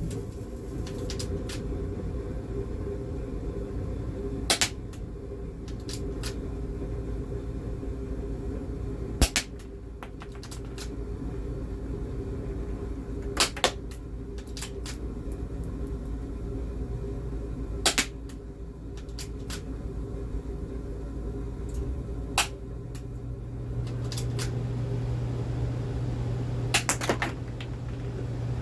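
Spring-powered 1911-replica airsoft pistol (Game Face M311 full metal) fired single-shot six times, about four and a half seconds apart; each shot is a sharp snap, some followed at once by a second snap. Fainter clicks fall between the shots, over a steady low hum.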